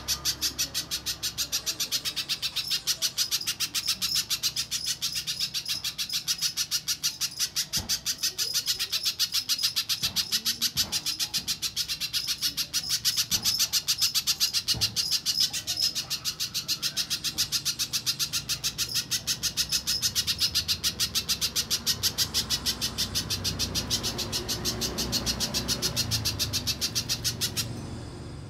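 Little spiderhunter calling: a long, fast, even run of sharp high notes, about five or six a second, that stops abruptly near the end.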